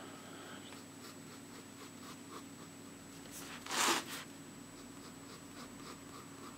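Ink pen scratching on paper in short, irregular shading strokes, with one louder swish across the paper about four seconds in.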